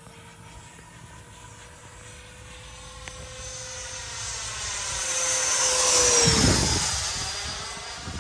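Freewing F-18 90 mm electric ducted-fan jet making a pass. The fan whine and rushing air build to their loudest about six seconds in, then the pitch drops sharply as the jet goes by.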